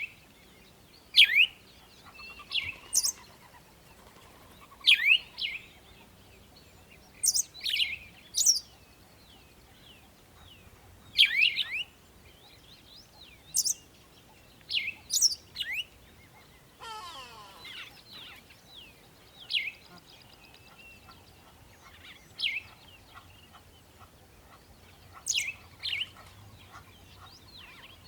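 Birds chirping: short, high, downward-sweeping chirps in clusters of two or three, repeating every couple of seconds. A brief noisy burst comes about two-thirds of the way through.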